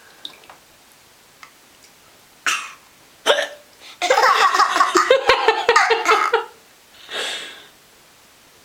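A woman hiccups twice, about two and a half and three seconds in. Then a baby laughs in a run of quick high-pitched pulses for about two and a half seconds, and a short breathy sound follows.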